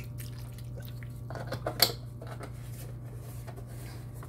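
Kitchen handling noises: a few soft knocks, then one sharp clink about two seconds in, over a steady low hum.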